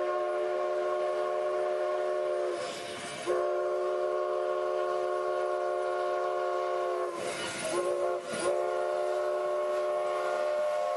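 Durango & Silverton No. 486, a K-36 narrow-gauge steam locomotive, sounding its multi-note chime steam whistle: a long blast that breaks off a little before three seconds in, a second long blast, a brief toot, then another long blast, the long-long-short-long signal used at grade crossings. A hiss of steam fills the gaps between blasts.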